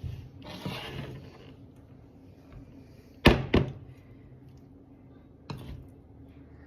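Kitchen preparation sounds: a brief rustle near the start, then two sharp knocks in quick succession a little over three seconds in and a third knock near the end.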